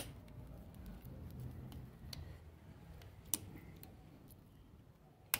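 Screwdriver turning the terminal screws of a plastic three-gang light-switch plate: three sharp clicks, at the start, about three seconds in, and just before the end, with fainter ticks between.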